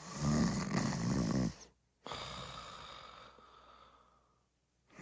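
A person snoring: one snore lasting about a second and a half, then a long breath that fades out over about two seconds. Another snore begins at the very end.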